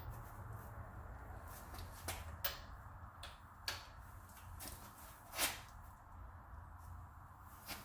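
Scattered sharp clicks and knocks of a breaker bar and socket being handled on the wheel's lug nuts, with the loudest knock about five and a half seconds in.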